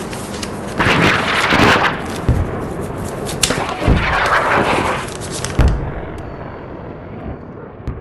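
Logo-intro sound effects: surging whooshes of noise and about three sharp, booming hits, the last a little over halfway through, then a long fading tail.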